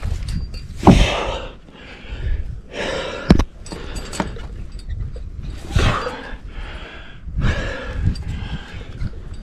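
A rock climber breathing hard, with heavy gasping breaths every second or two while working up a sandstone chimney. Two sharp knocks, early on and again a couple of seconds later, from gear or shoes striking the rock.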